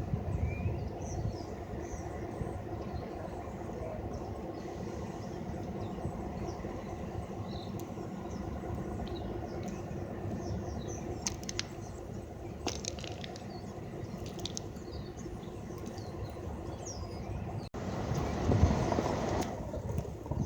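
An engine idling steadily, a low even hum, with small birds chirping faintly over it. Near the end the sound cuts off abruptly and a louder rush of noise follows for about two seconds.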